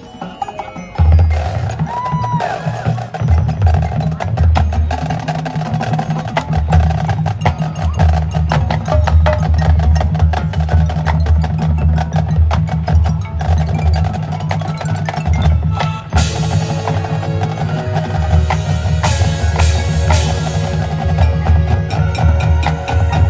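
Marching band playing its field show: heavy low brass and drums in pulsing phrases with a constant clatter of sharp percussion hits, starting loud about a second in. Brighter ringing mallet or bell tones join in the second half.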